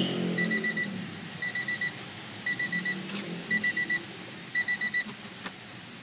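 Electronic beeping: quick high beeps in sets of four, one set about every second, five sets in all, followed by two sharp clicks near the end.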